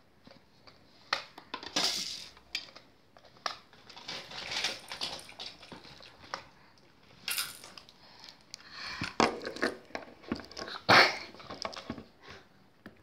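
Children's plastic toy mobile phone playing short electronic sound effects through its small speaker, in several separate bursts, with sharp clicks from its buttons and plastic being handled.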